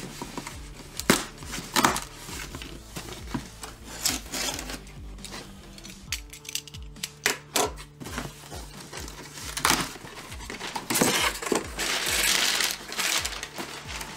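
A cardboard shipping box being handled and opened: sharp knocks and taps of cardboard on the tabletop, then a longer stretch of cardboard flaps scraping and rustling about eleven seconds in. Background music with a steady beat plays underneath.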